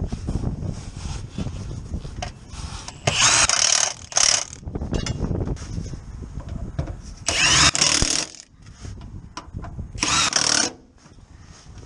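Milwaukee cordless impact wrench hammering on a bolt under the car in four short bursts a few seconds apart, the longest about a second.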